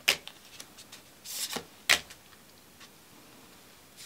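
Tarot cards being handled and dealt onto a wooden table: a sharp card snap right at the start, a short rustle of cards about a second in, and another sharp snap just before two seconds.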